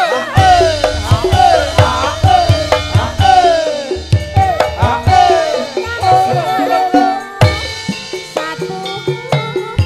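Javanese gamelan music driven by kendang hand drumming: a busy run of drum strokes over regular deep beats, with repeated falling pitched tones.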